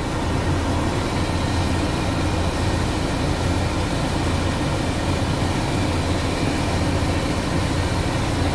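Sinotruk HOWO 371 truck's diesel engine idling steadily with a low hum, under the even rush of the cab's air-conditioning blower fan running on auto. The blower works again now that the defective fan controller has been replaced.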